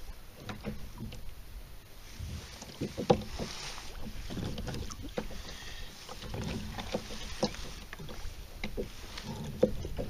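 Small knocks and taps on a plastic sit-on-top fishing kayak as the angler shifts and handles gear, with one sharp knock about three seconds in.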